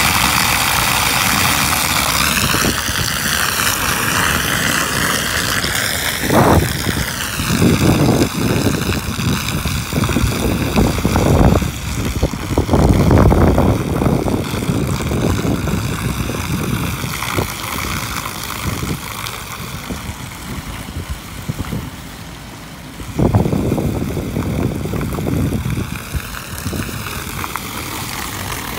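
Water rushing steadily down a cleared roof drain on a flooded flat roof. Several louder low rumbles come through in the first half and once more later on.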